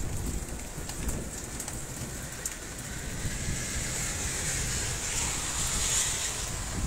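Heavy wind-driven rain pouring down in a storm, gusts buffeting the microphone, with scattered sharp clicks of drops striking nearby. The downpour swells, loudest about six seconds in.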